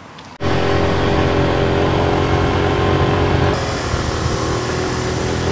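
Motor vehicle engine running steadily while driving, with a rushing road and air noise; it cuts in suddenly about half a second in.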